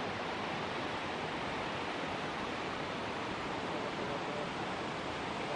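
Waterfall and river water rushing, a steady even roar.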